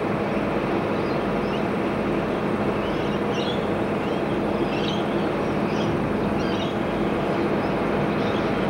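Steady outdoor background noise with a low hum, and faint scattered high chirps.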